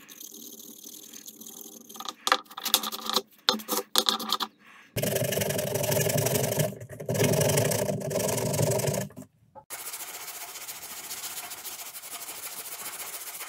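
Sharp clicks and knocks of handling a few seconds in, then a loud rough rubbing noise for about four seconds. After a sudden break, a steady rasping hiss of a strip of sandpaper worked back and forth across a sealed wooden lure body clamped in a vise.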